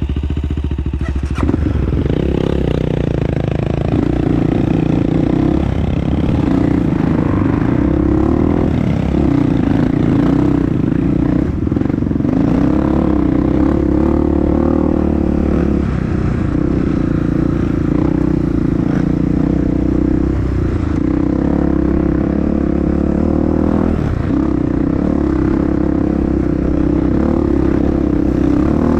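Honda CRF dirt bike engine running throughout, its revs rising and falling as it rides, with some clatter and scraping over rough ground.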